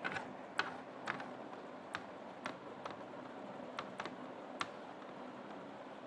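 Eating sounds: about nine sharp clicks in the first five seconds, then only a steady background hiss.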